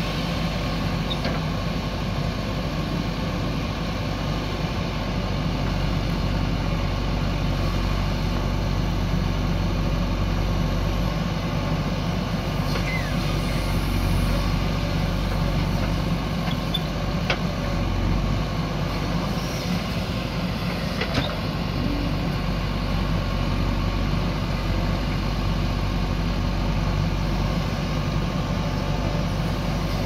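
A heavy machine's diesel engine running steadily, with a couple of faint knocks in the second half.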